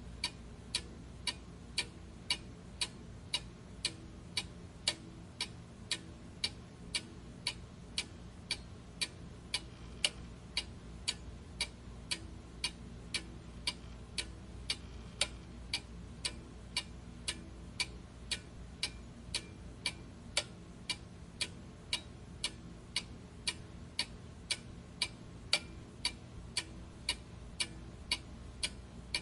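Clock ticking steadily, about two ticks a second, over a faint background hiss.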